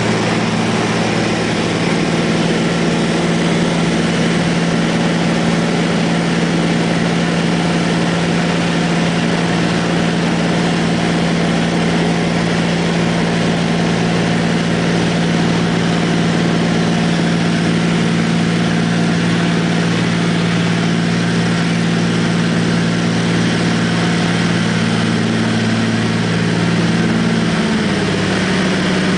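Floatplane's piston engine and propeller at takeoff power, a loud steady drone with rushing noise, heard from inside the cabin. Near the end the pitch of the drone drops a little as the plane climbs away from the water.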